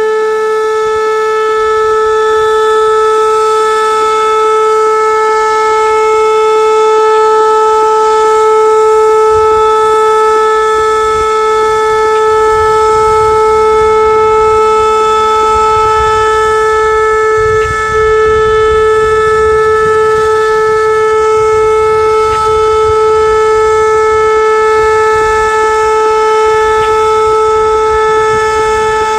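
Whelen WPS-2809 electronic outdoor warning siren sounding a steady alert: one loud unbroken tone at about 435 Hz with strong overtones, holding the same pitch throughout.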